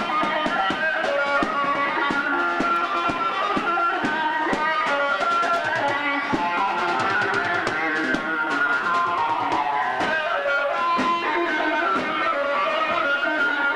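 Music: a quick melody on a plucked string instrument over a steady drum beat.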